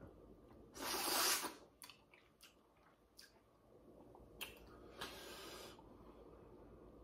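Wet, squishy sounds of crawfish being peeled by hand and eaten, with soft clicks and smacks. One loud breathy burst comes about a second in.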